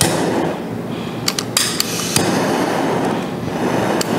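Handheld kitchen blowtorch burning with a steady rushing hiss of flame, which starts suddenly and grows louder about two seconds in. A few sharp clicks sound a little over a second in and again near the end.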